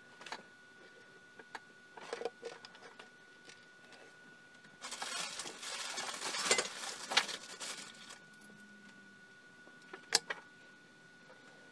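Handling noises at a workbench: a few light clicks, then about three seconds of rustling and clattering in the middle, and a single sharp click near the end. A faint steady high whine runs underneath.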